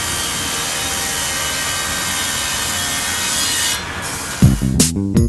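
Handheld disc sander running steadily against an aluminum propeller blade, abrading its surface, then stopping about four seconds in. Music with a strong bass beat starts half a second later and is the loudest sound at the end.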